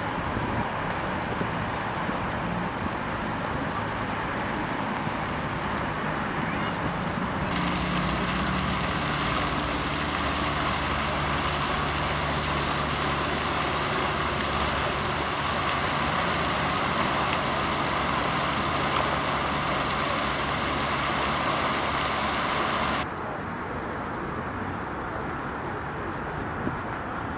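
Fountain water jetting and splashing in a steady rushing hiss. The sound gets brighter and louder suddenly about seven seconds in and drops back as suddenly near the end.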